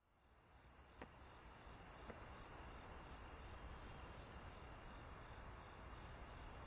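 Crickets chirping faintly at night, fading in from silence, with a small click about a second in and a fainter one about two seconds in.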